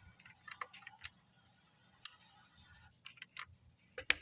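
Plastic keycaps being pressed back onto the switch stems of a Redragon mechanical keyboard: irregular light clicks, the loudest near the end.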